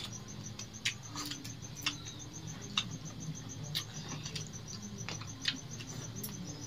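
A cricket chirping steadily in a fast, even pulse, about seven chirps a second, with a few sharp clicks over it.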